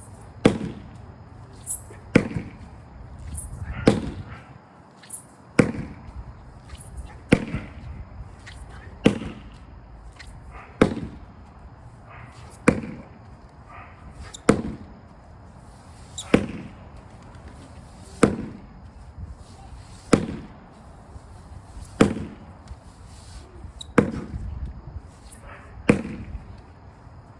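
Sledgehammer striking a framed, doubled-up rubber tire in a steady workout rhythm: a heavy thud about every two seconds, with a few lighter hits in between.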